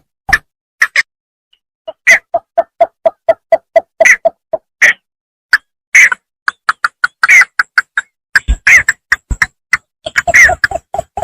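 Bittern (bambangan) in the rice field calling a rapid series of short, evenly spaced notes, about five or six a second. The runs are broken by a pause of about a second and a half near the start, and louder, sharper notes come in among the steady ones.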